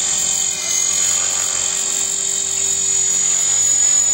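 450-size radio-controlled model helicopter in flight: a steady high-pitched whine from its motor and rotors, dipping briefly in pitch about half a second in.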